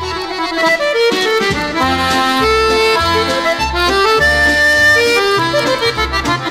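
Easy-listening instrumental music from a 1960 stereo LP: accordions play a melody of held, reedy notes over a bass line that changes note about twice a second.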